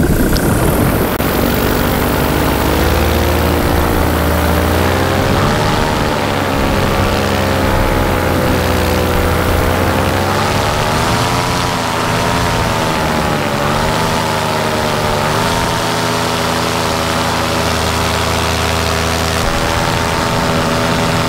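Paramotor's Vittorazi Moster 185 single-cylinder two-stroke engine and propeller running in flight at a steady loudness. Its pitch rises and falls repeatedly through the middle stretch and holds steadier near the end.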